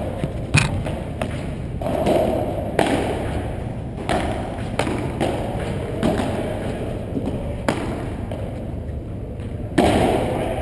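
Padel rally: the ball struck back and forth by solid padel rackets and bouncing off the court and walls, a sharp hit every one to two seconds, echoing in a large hall.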